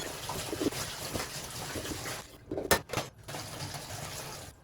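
Chicken thigh sizzling skin-side down in a pan over a solid-fuel burner: a steady hiss that drops away briefly a little past halfway, with two sharp clicks in that gap.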